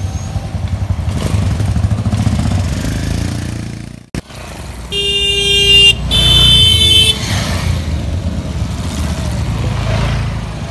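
Motorcycle engines running close by, then two horn blasts about a second long each, back to back about five seconds in, the second at a slightly higher pitch.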